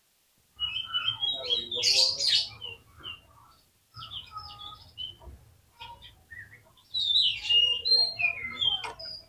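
Oriental magpie-robin (kacer) singing vigorously: varied whistles, chatter and harsh notes in bursts, starting about half a second in, quieter in the middle and loud again near the end.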